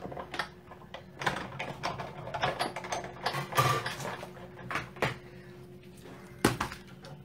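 Hand-cranked Sizzix die-cutting machine at work, its rollers pressing a plastic cutting-plate sandwich through to die-cut a strip of cardstock, with irregular creaks and clicks. Then the plastic plates are handled, with a few clicks and one sharp knock near the end, over a faint steady hum.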